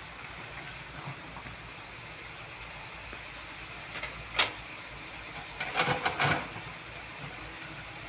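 Tata Hitachi excavator engine running steadily. A single sharp clank comes about four seconds in, and a short cluster of knocks follows about two seconds later.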